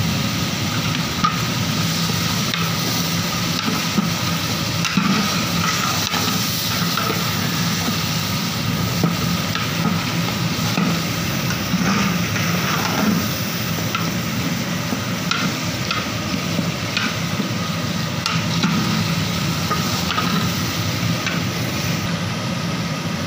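Chicken pieces sizzling in hot oil in a large aluminium cooking pot as they are browned with spice masala (bhunai). A long metal ladle stirs them, with scattered clicks and scrapes against the pot, over a steady low hum.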